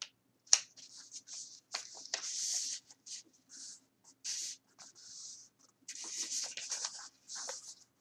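A sheet of paper being folded into three and creased by hand: a run of crisp rustles and crinkles, with a sharp crackle about half a second in.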